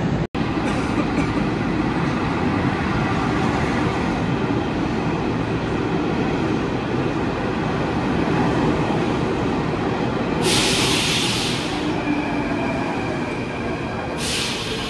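Athens Metro Line 2 train pulling slowly into an underground station and running along the platform with a steady heavy rumble of wheels and motors. Two loud hisses come about ten and fourteen seconds in, and a faint high squeal runs under the rumble near the end.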